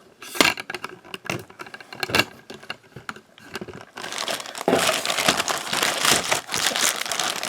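Plastic packaging crinkling as it is handled, with scattered clicks and knocks for the first few seconds; the crinkling turns dense and continuous about four seconds in.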